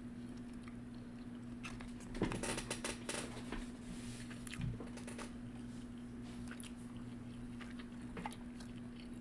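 Close-miked chewing and wet mouth sounds of a person eating huli huli chicken, with a cluster of smacks and clicks about two to three and a half seconds in and a few more near the end, over a steady hum.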